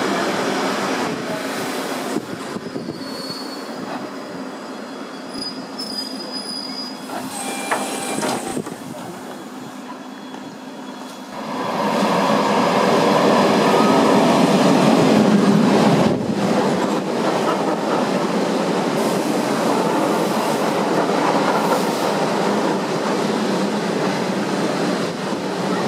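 Suburban electric trains at a station platform: a moderate rumble with brief high wheel squeals in the first few seconds. About eleven seconds in, another electric train comes in alongside on the next track, and its wheels and running gear make a loud, steady rumble.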